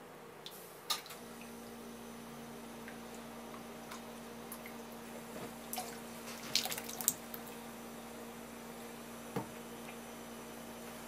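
Pot of tentsuyu broth heating toward a simmer: small bubbles popping and dripping sounds, with a few light clicks, over a steady low hum that starts about a second in.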